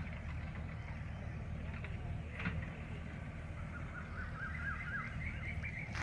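A bird calling in a quick run of repeated chirps in the second half, over a steady low rumble.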